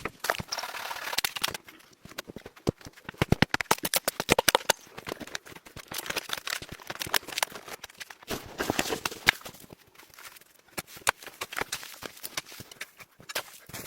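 Quick, irregular sharp knocks and clicks coming in bursts, at times about ten a second, with short quieter gaps between bursts.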